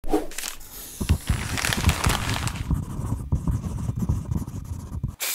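A run of scratchy scraping and rustling sounds, many short strokes in quick succession, that stops abruptly near the end.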